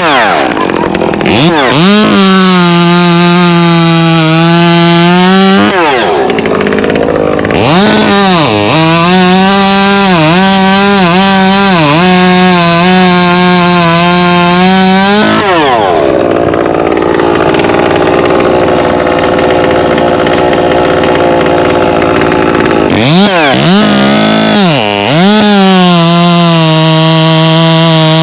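Two-stroke chainsaw running at high revs, its pitch sagging and recovering again and again as it cuts into wood. About halfway through it drops back to a rougher, weaker note for several seconds, then revs up again near the end.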